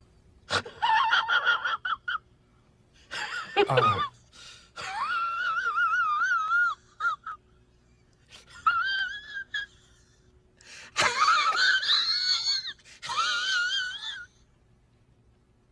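A high-pitched, wheezy voice-like sound in about six separate bursts, its pitch wobbling up and down, like a wheezing laugh sound effect.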